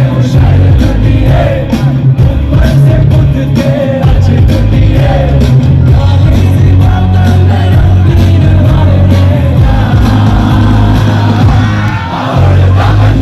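Live band music played very loud through a concert PA, with heavy bass and a singer's voice, and some shouting from the crowd.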